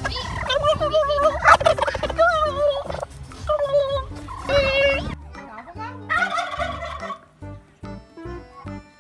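Wild turkey tom gobbling, loud warbling calls repeated over the first five seconds, then once more, quieter, about six seconds in.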